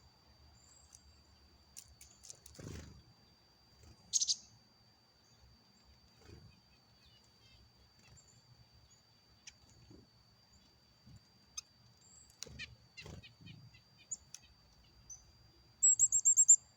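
Small birds chirping in scattered short calls, with a louder burst about four seconds in and a quick run of about six loud high chirps near the end. A faint steady high tone runs underneath.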